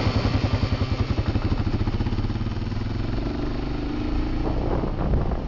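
Small engine running with a fast, uneven pulsing beat that smooths out about two seconds in and swells again near the end.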